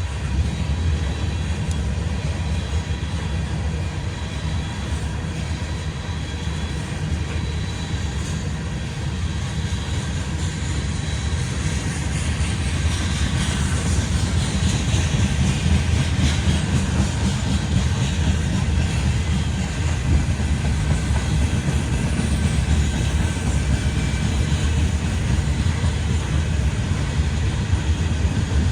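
Freight train cars rolling past, a steady rumble of steel wheels on rail with a hiss above it.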